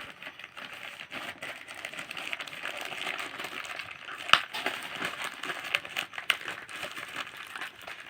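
Crinkling and crumpling of a courier package's wrapping as it is handled, with irregular small clicks and one sharp click about four seconds in.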